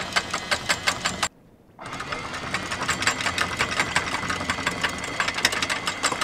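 Electric anchor windlass hauling in anchor chain: a rapid clatter of chain links running over the gypsy, with a steady high whine. It drops out for about half a second a little over a second in.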